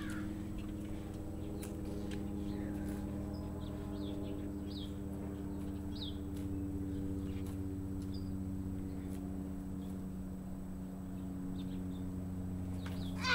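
Small birds giving short, high chirps now and then, over a steady low hum.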